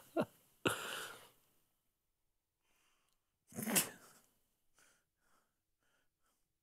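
A man's stifled laughter: short breathy bursts of air through the nose and mouth, the loudest about three and a half seconds in, trailing off into faint breaths.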